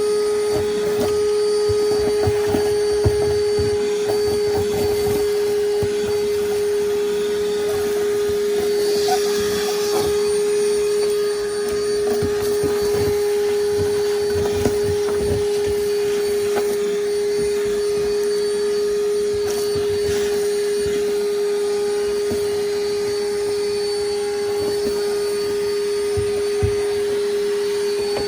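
Vacuum cleaner running steadily on a long wand, with a constant hum and occasional short clicks and knocks as it sucks out the space beneath a bass boat's floor.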